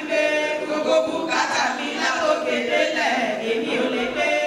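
A group of voices singing a chant-like song without instruments.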